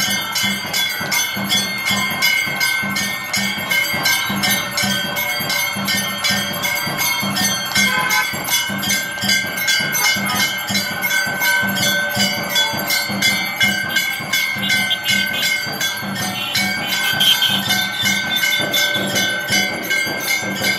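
Hand-rung brass temple bell struck over and over in a steady, fast rhythm, its ringing tone carrying on between strikes, with a duller beat pulsing underneath.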